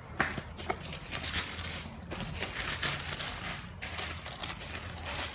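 White tissue paper rustling and crinkling in repeated bursts as hands unfold it inside a cardboard gift box.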